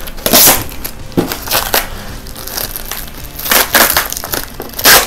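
Packing tape being peeled and ripped off a foam-wrapped package, in several short tearing bursts; the loudest come about half a second in, around three and a half seconds, and just before the end.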